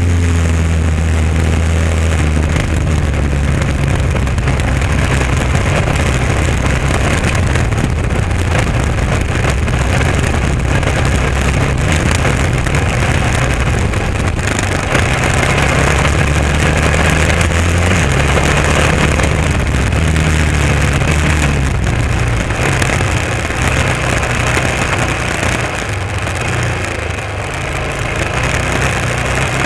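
Honda XR650R's single-cylinder four-stroke engine running as the bike is ridden, its pitch stepping up and down with throttle and gear changes, with a short easing-off near the end.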